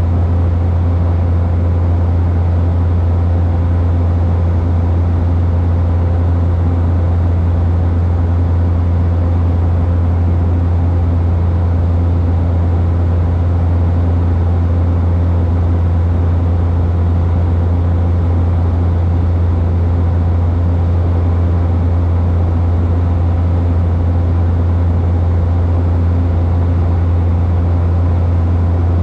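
Steady cabin drone of a Cessna Caravan single-engine turboprop in cruise: a strong, even low hum from the propeller with a few fainter steady overtones over a rushing haze.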